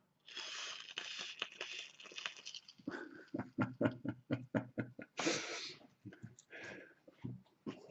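Faint rush of breath blown through a vape tank atomizer's drip tip with its airflow fully open, lasting about two seconds, followed by a run of small clicks and two short puffs of breath.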